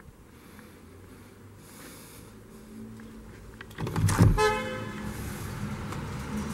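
A PVC balcony door being opened with clicks and a low thud, overlapped by a brief high tone about four seconds in, after which steady street traffic noise comes in through the open door.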